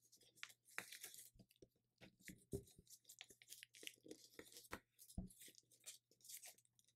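Thin paper being folded and creased by hand: faint, irregular crinkles and soft taps as a crease is pressed in along an edge.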